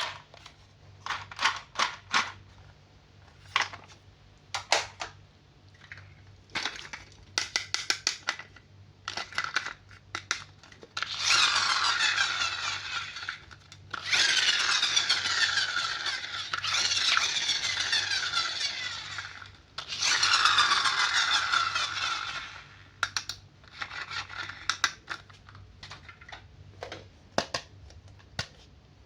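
Toy packaging being handled and opened: scattered clicks and crackles, with four long scraping, tearing stretches of two to three seconds each through the middle.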